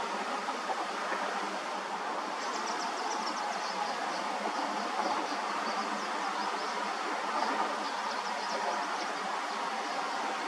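Freight train rolling past: a steady noise of steel wheels on rails, with quick faint high-pitched squeaks joining in from about two seconds in.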